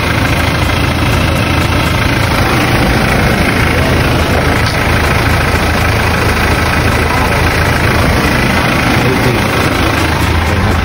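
Toyota Hiace van's engine idling steadily with an even low hum.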